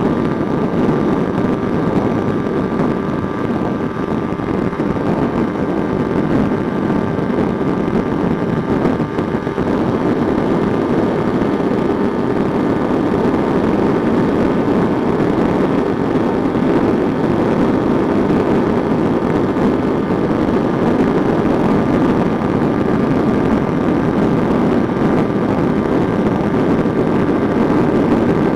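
Kawasaki Ninja motorcycle engine held at high revs at full throttle during a top-speed run, a steady drone mixed with the rush of wind at highway speed.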